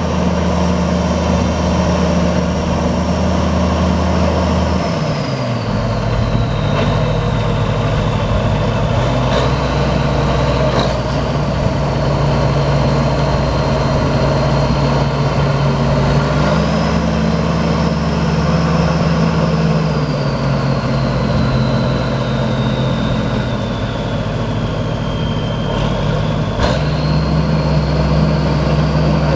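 1990 Ford 946 four-wheel-drive tractor's diesel engine running as it drives, its engine speed dropping about five seconds in, picking up again partway through, then sagging and rising once more near the end. A high whine rises and falls with the engine speed.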